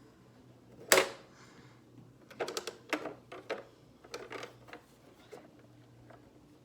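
Toy playset pieces being handled: one sharp clack about a second in, then a run of lighter clicks and taps.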